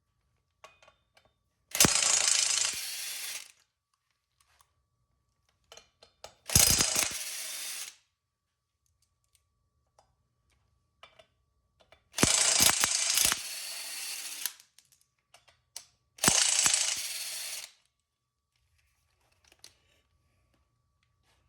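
Impact wrench undoing the rear sprocket bolts from the motorcycle's hub in four separate bursts of about a second and a half each. Each burst starts loud, then drops lower before it stops.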